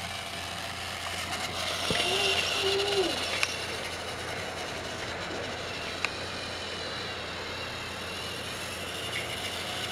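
Battery-powered Trackmaster motorized toy trains running along plastic track, their small electric motors giving a steady high whine. There are two sharp clicks, a few seconds apart, in the middle.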